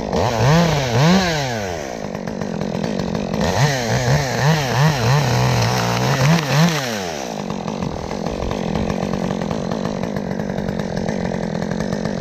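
Chainsaw revved in short blips, twice near the start and then about six times in quick succession, then running steadily.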